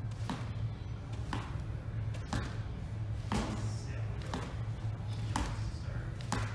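Trainer-shod feet striking a tiled gym floor about once a second as the legs switch in an A-press drill, each landing a sharp knock, over a steady low hum.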